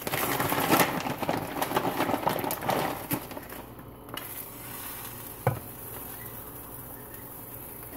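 Omelette sizzling in a nonstick frying pan. The crackling is louder and busier for the first three seconds, then settles to a quieter steady sizzle, with a single sharp click about five and a half seconds in.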